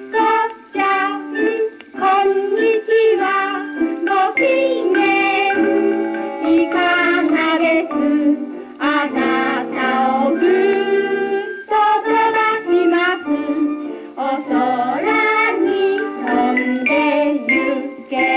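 Children's song sung by a woman and a children's choir with piano accompaniment, played back from a 1960s flexi disc (sonosheet) on a turntable. The recording sounds thin, with almost no bass.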